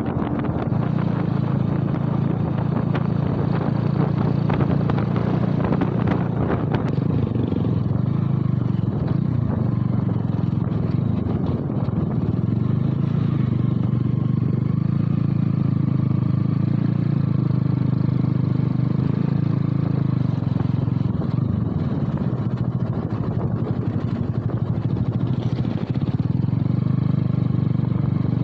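Motorcycle engine running steadily while riding along the road, heard from the bike the camera is mounted on.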